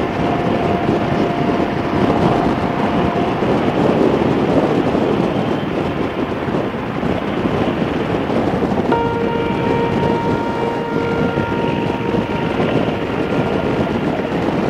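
Harley-Davidson motorcycle cruising at road speed: a steady engine and road noise with wind rushing over the microphone.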